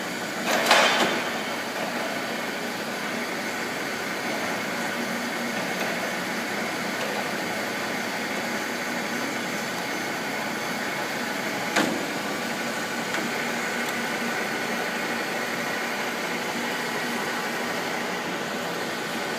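Gisholt 3L saddle-type turret lathe running with a steady mechanical hum from its 30-horsepower main motor and drive. A brief rasping noise comes about half a second in, and a single sharp knock about twelve seconds in.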